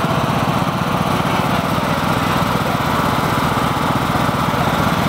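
John Deere riding lawn tractor's small engine running steadily at close range, a fast even chug, as the tractor pulls a float trailer at walking pace.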